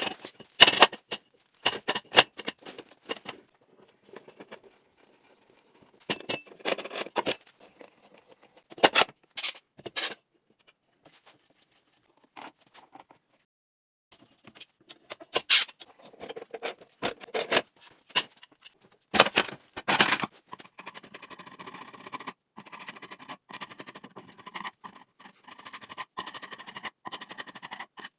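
Scattered knocks, clicks and short scrapes from hands handling wooden pieces and tools on a workbench, with quiet gaps between. From about twenty seconds in, soft background music takes over.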